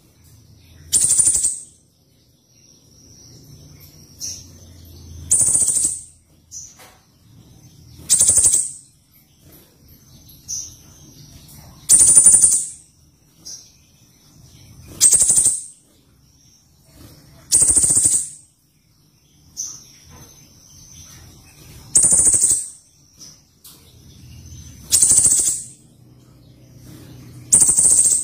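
A pentis raja bird calling repeatedly: a short, loud, very high, sharp call about every three seconds, nine in all, with softer high notes in between.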